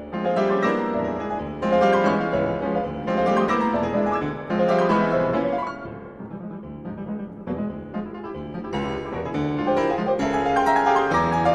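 Classical piano music, played in swelling phrases with a softer passage in the middle.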